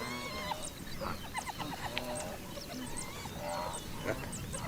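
Many short, overlapping high-pitched animal cries and squeals, some with a rapid stuttering pulse, one after another.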